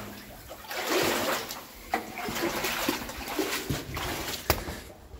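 Boots splashing and scuffing through shallow water and wet leaves on a concrete floor, with a few sharp knocks as the walker steps over stone blocks.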